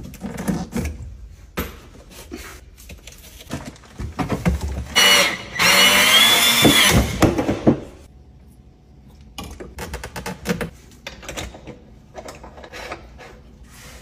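A handheld power tool runs against a plastic drain pipe stub for about three seconds, starting about five seconds in, with a whine that wavers in pitch. Around it come the clicks and knocks of plastic pipe fittings being handled.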